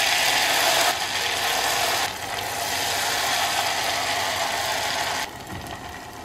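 Hot frying oil sizzling and crackling hard as a thin, watery ghevar batter of maida, ghee and water is poured into it in a stream from above. The frying dies down in steps and drops sharply a little after five seconds in.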